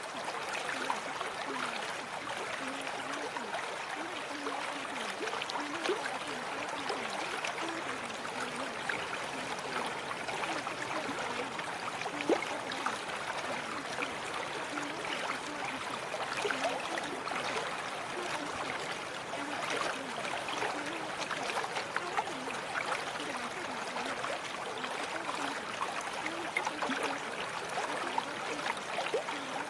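Running water of a small stream, trickling and gurgling at an even level with no breaks.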